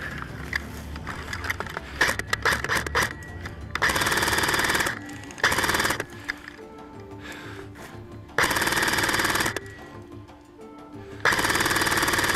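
Airsoft MP5 electric gun firing full-auto bursts, four bursts of about a second each with short gaps between, after a few scattered single clicks.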